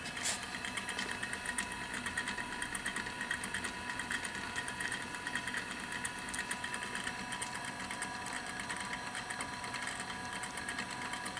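EWAG RS2 radius and tangent grinder running with its grinding wheel spinning: a steady machine hum with a fast, even rattling rhythm and a steady whine. There is a short click just after the start.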